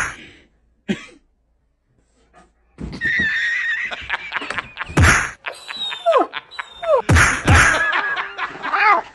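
A sharp smack, a smaller knock about a second later, then after a short pause a loud scuffle of thuds and pitched cries, several of them falling in pitch, as cats and a dog tussle.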